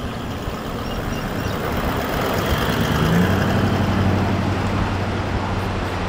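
A 4WD's engine running as it drives past through soft sand, getting louder to about three seconds in and then easing off, with a brief rise in engine pitch at the loudest point.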